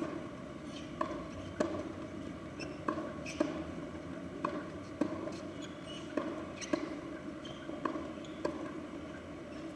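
Tennis ball knocks, racket strikes and bounces on the court, in an uneven rhythm of about one every half second to second, often in close pairs, over a steady background hum.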